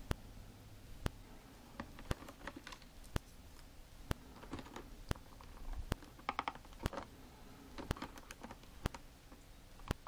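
Plastic action figures and their packaging tray being handled and snipped free with side cutters: small clicks, rattles and crinkles, busiest a few seconds in. Under it, a sharp tick comes about once a second.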